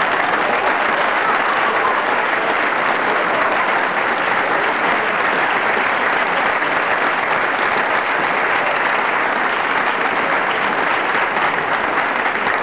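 Crowd applauding, a dense steady clapping without a break.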